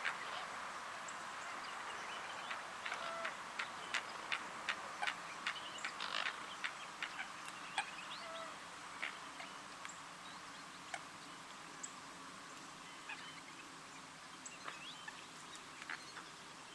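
Limpkin's bill clicking and tapping on a snail shell as it feeds: a run of sharp, irregular clicks, dense at first and thinning out later, over a steady hiss, with a few faint bird chirps.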